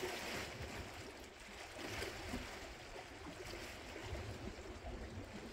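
Sea washing against a rocky shore, heard as a steady hiss with an uneven low rumble of wind on the microphone.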